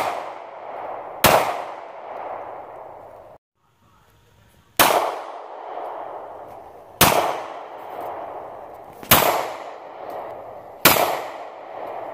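Ruger LC-series compact pistol fired in slow single shots: one about a second in, then after a brief moment of dead silence four more, about two seconds apart. Each shot is followed by a long rolling echo.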